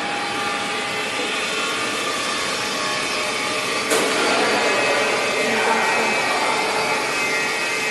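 QS-9J garlic and vegetable chopping machine running, its electric motor and chopping blades giving a steady whirring hum while mincing garlic. One sharp knock comes about four seconds in, after which the machine runs a little louder.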